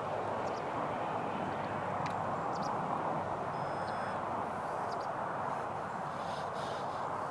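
Twin electric ducted fans of a Freewing Su-35S model jet running at high power: a steady rushing noise without clear pitch changes.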